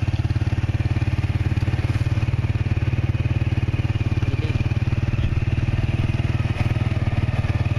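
Small motorbike engine running steadily while under way, heard from the rider's seat, with a fast, even pulse.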